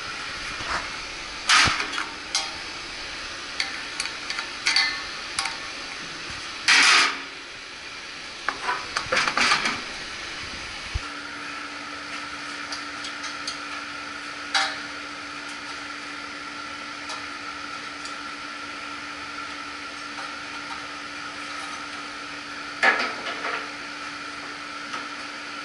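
Metal hand tools clanking and rattling against a galvanized sheet-metal blower housing and blower wheel during a blower motor removal, including a wrench being dropped. The sharp clanks come in clusters, most in the first ten seconds and once more near the end, and a steady low hum starts partway through.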